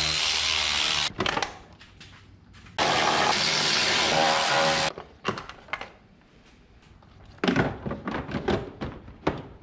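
Cordless electric ratchet running in two bursts, the first about a second long and the second about two seconds, as it turns bolts. After that come scattered light clicks and knocks of tools and parts being handled, busiest near the end.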